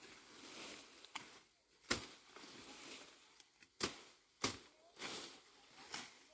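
Several sharp chopping strikes of a hand tool, the loudest about two, four and four and a half seconds in, with rustling of vegetation between them.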